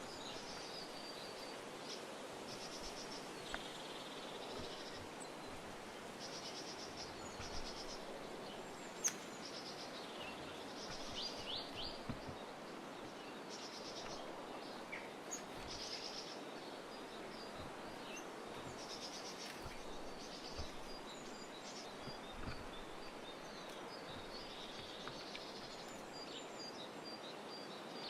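Small songbirds chirping and twittering, with many short high calls and quick trills, over a steady background hiss. A few sharp clicks, the loudest about nine seconds in.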